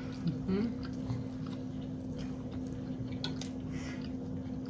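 Close-miked chewing of a bologna-and-egg sandwich on toasted bread: soft wet squishing and scattered mouth clicks from two people eating.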